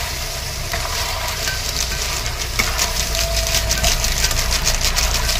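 Chicken curry sizzling in an iron kadhai over a steady low rumble, with a spatula scraping and stirring through the pan in quick repeated strokes from about halfway in.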